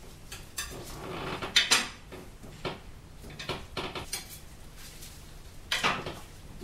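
Palette knife scraping and tapping on a palette as oil paint is mixed, in a series of short strokes. The loudest strokes come about a second and a half in and again near the end.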